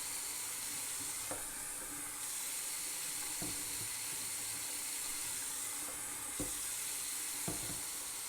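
Tap water running steadily into a pot, a constant hiss with a few faint knocks of the pot.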